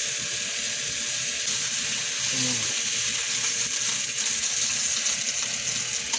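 Marinated chicken pieces sizzling in a frying pan with a steady hiss of hot fat as they are moved with tongs and a wooden spatula. The chicken is fully pan-grilled and being lifted out.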